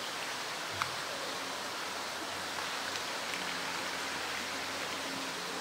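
Steady rushing background noise with a faint low hum, broken once by a sharp click about a second in.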